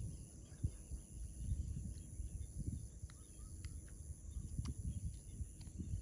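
Steady high-pitched insect chorus, likely crickets, under irregular low thumps and rumbles and a few light clicks.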